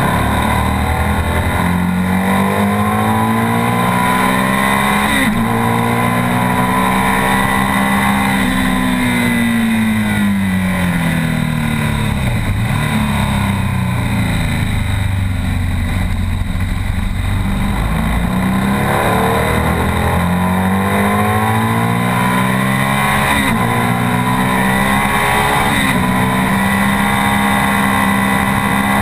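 BMW R 1200 S's boxer twin engine at full race pace. It revs up through the gears with a drop in pitch at each shift, falls away under braking in the middle, then climbs through the gears again and holds high near the end.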